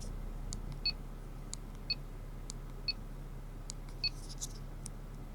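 Short, high electronic ticks about once a second, with fainter clicks in between, over a low steady hum, in a 70mai Dashcam Pro's own audio recording. This is the interference ticking that the uploader links to the camera's Wi-Fi being on.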